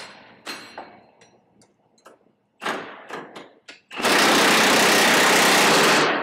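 Half-inch impact wrench with a 1 1/8-inch socket hammering for about two seconds, tightening a mounting bolt, starting about four seconds in. Before it come a few light clicks and knocks of tool and metal.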